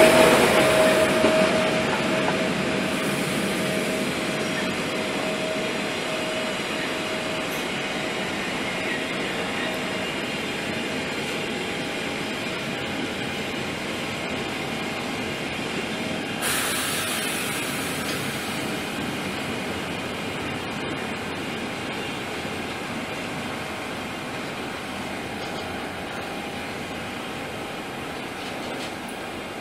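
Car-carrier freight wagons rolling over the rails on their way into the station, a steady rolling rumble that slowly fades as the train slows. A steady whine dies away in the first few seconds, and about sixteen seconds in a brief rise in hiss.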